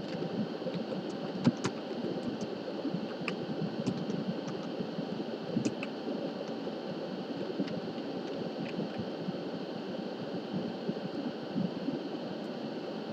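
Computer keyboard being typed on: scattered, irregular faint key clicks over a steady hiss.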